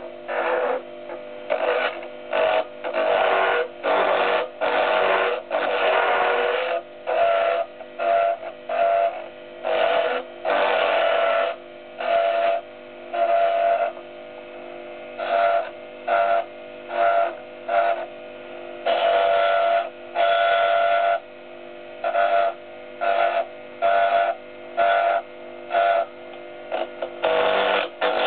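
Small wood lathe running with a steady whine while a turning tool cuts a spinning mahogany blank in short, irregular bursts, over and over.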